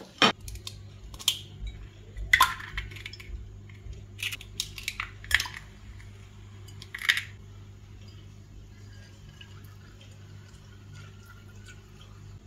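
Eggs being cracked into a china bowl: a series of sharp taps and clicks through the first seven seconds or so, over a steady low hum. After that only the hum goes on.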